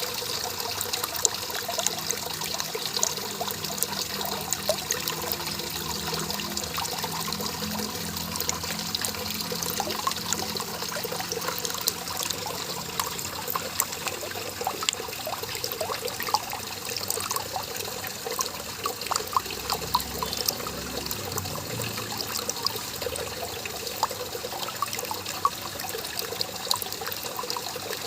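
Small garden waterfall trickling and splashing steadily, with many small drips and splashes.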